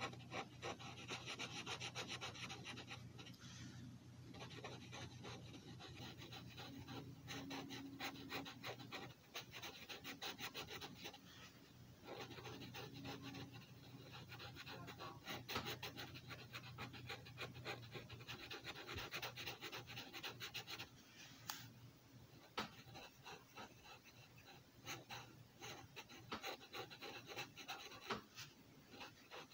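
Sharpie permanent marker tip rubbing and scratching on paper in quick short strokes as a pattern is inked in, with brief pauses between bursts of strokes.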